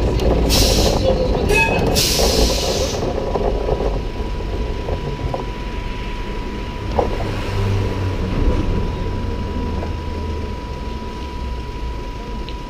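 Vintage 1911 Hurst Nelson tram heard from on board: three short hisses of air in the first three seconds, then a low rumble under a steady high-pitched hum as the tram stands still.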